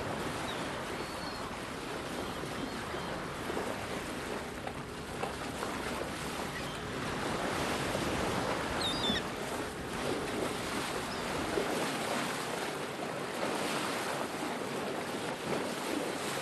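Sea waves washing with wind noise, a steady rush of water; the low rumble drops away about twelve seconds in.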